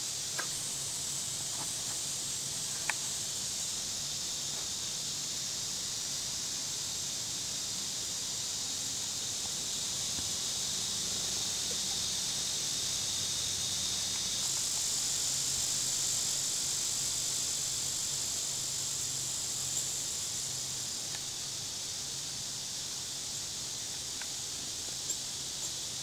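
Steady high-pitched drone of late-summer insects in the woods, with a faint click about three seconds in.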